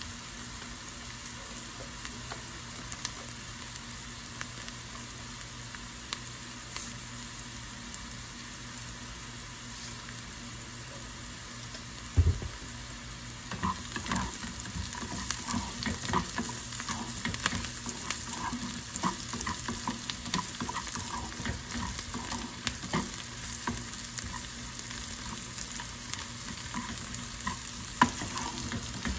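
Chopped onions sizzling steadily in oil in a small nonstick frying pan. About twelve seconds in there is a knock, then a spatula stirring and scraping the onions around the pan with irregular ticks over the sizzle.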